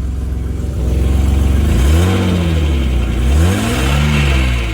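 1989 Mercedes-Benz 190E engine running just after its first start, then revved twice, each rev rising and falling over about a second. It is a 353,000-mile engine that the owner says doesn't sound too bad for its mileage.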